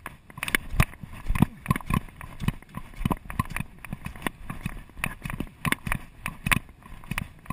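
A wildland firefighting hand tool chopping and scraping into dry grass and dirt again and again, about two to three blows a second, as a scratch line is cut.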